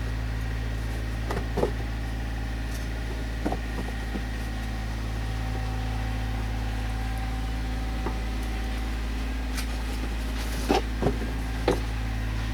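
Sharp plastic clicks and knocks as heater-box parts are handled and worked apart, a few spread out and several close together near the end, over a steady low electrical or machine hum.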